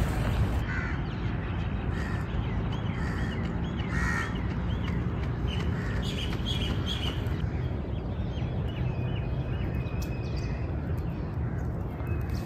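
Crows cawing, with short repeated bird calls over a steady low rumble.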